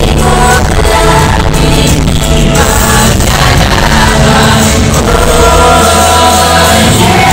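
Live concert music played loud through the venue's sound system: a singer's voice over held chords and a deep bass line.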